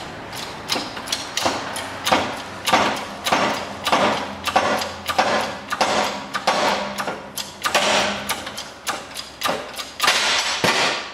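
Ford Fiesta front hub's stub axle being pressed into a new split wheel bearing in the hub carrier: a run of sharp metallic knocks and clanks, roughly two a second with short ringing after each, as the hub goes down onto the bearing.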